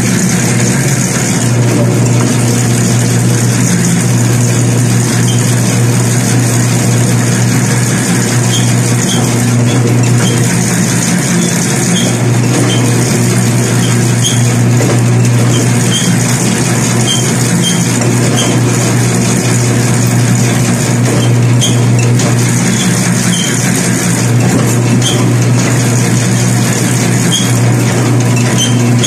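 Electric bakery dough roller running steadily with a loud, low motor hum as monay bread dough is passed between its rollers.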